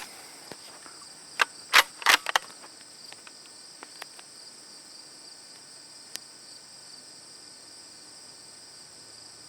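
Steady high-pitched insect chirring, typical of crickets, with a quick cluster of sharp clicks about one and a half to two and a half seconds in and one more click a few seconds later.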